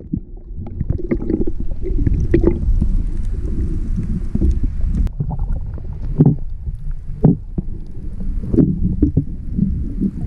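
Muffled water sloshing and gurgling picked up by a camera held underwater in a waterproof housing, a low, uneven rumble broken by irregular knocks and thumps.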